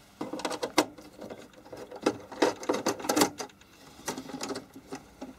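Irregular clicking and rattling of a screwdriver and metal case fittings being handled on the HP 8568B spectrum analyser as its top bracket and handles are taken off, coming in three short bunches.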